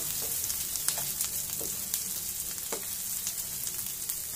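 Sliced onion and green capsicum sizzling in hot oil in a non-stick pan on a high flame: a steady sizzle with scattered light scrapes and taps as a wooden spatula stirs them.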